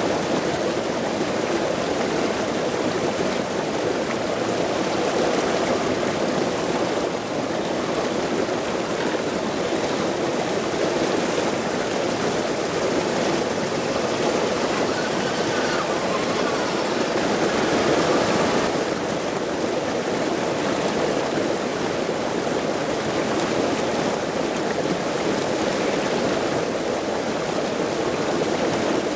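Small waterfall pouring into a shallow river pool: a steady, even rush of splashing water.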